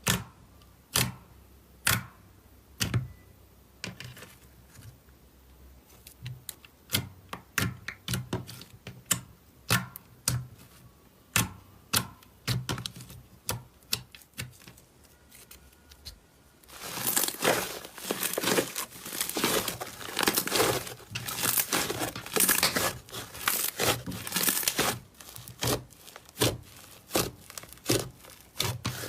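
Slime being squeezed and pressed by hand. It makes separate sharp pops and clicks at first, then, a little past halfway, turns to dense, loud crackling.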